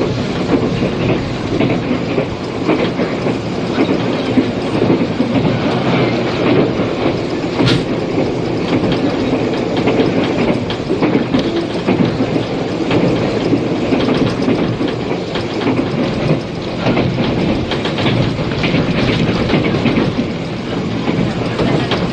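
A 485 series electric multiple-unit limited express train running at speed, heard inside the passenger car: a steady rumble with the clickety-clack of wheels over rail joints and a sharp click about eight seconds in. It was recorded on old cassette tape, with tape hiss and a muffled top end.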